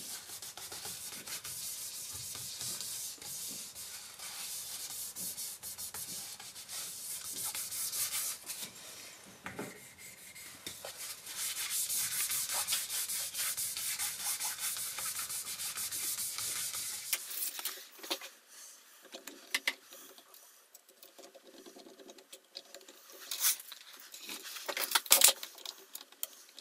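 Paper towel wiping and rubbing over the matte-painted body of an electric guitar, a continuous scratchy rubbing for about 17 seconds. Then the rubbing stops, leaving quieter scattered clicks and handling noises.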